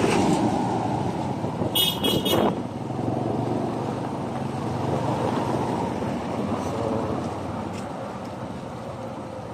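Street traffic, with a motor vehicle running nearby whose noise slowly fades, and a short horn toot about two seconds in.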